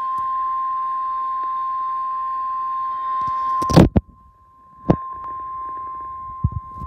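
NOAA Weather Radio's steady single-pitch warning alarm tone, the 1050 Hz signal that heralds a warning, played from a weather radio with hiss behind it. A few loud clicks cut in, the loudest a little past halfway, after which the tone goes much fainter for about a second and then returns at a lower level.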